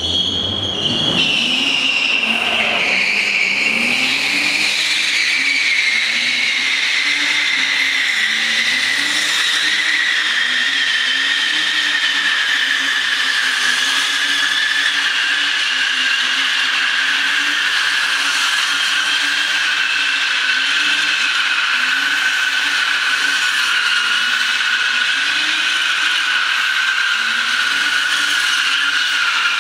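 A BMW's tyres squealing without a break as the car drifts in circles, the squeal slowly falling in pitch, heard from inside the cabin. Under it the engine revs rise and fall about every two seconds as the throttle is worked.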